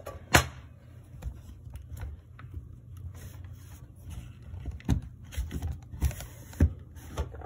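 Glass-fronted photo frames being handled and set down on a hard tabletop: a sharp knock about half a second in, then scattered lighter taps and clicks as a frame is shifted into line on top of another. A low steady hum runs underneath.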